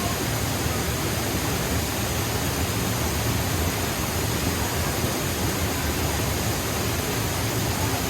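Steady rush of a waterfall cascading over granite ledges, a dense unbroken noise.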